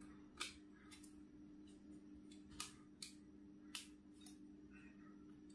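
A few sharp, scattered small clicks of plastic cable connectors and wires being pressed into place inside a laptop's base, over a faint steady hum.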